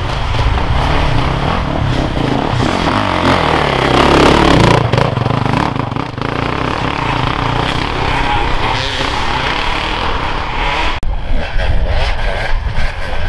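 Enduro dirt bike engine revving as the bike pulls through deep mud, rising in pitch about four seconds in. Near the end another dirt bike's engine takes over, revving unevenly.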